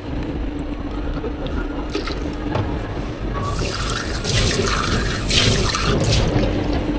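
Liquid running into a container in a drink-shop workspace, loudest in a spell from about halfway through, with a few small clicks of utensils over a steady low machine hum.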